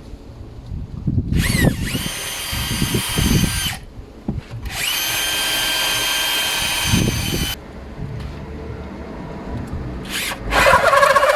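Electric drill boring a lock hole through a wooden gate with a drill bit, in two runs of a few seconds each: a steady motor whine with low thuds as the bit bites into the wood. A short spin-up follows, and just before the end a different, wavering whirr starts.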